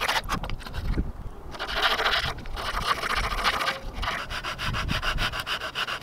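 Small fine-toothed hand saw cutting through a block of cottonwood bark in quick back-and-forth strokes, with a short pause about a second in.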